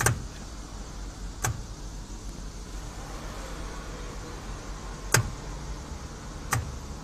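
Four sharp clicks, the first at the very start, one about a second and a half in, and two more near the end, over a steady low machine hum.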